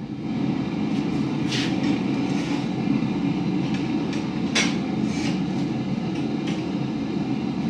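A blacksmith's forge running with a steady low rushing noise that gets louder shortly after the start as the tongs go in to be heated. A few light metallic clinks come through, one at about a second and a half in and a couple more in the middle, as the iron tongs are handled.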